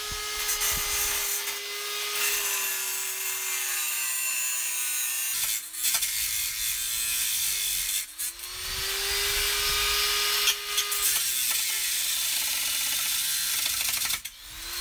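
Angle grinder cutting through the steel screws that bolt a metal rail to a vehicle floor. A steady high whine sags and wavers in pitch as the disc bites into the metal, with two short breaks about six and eight seconds in.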